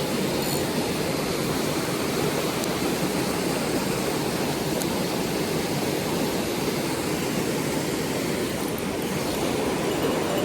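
Mountain stream rushing: a steady, even wash of flowing water.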